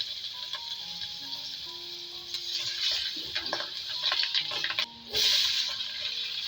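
Water running steadily from a tap, with a few knocks of kitchenware around three to four seconds in; the water stops briefly about five seconds in and comes back louder. Soft background music plays underneath.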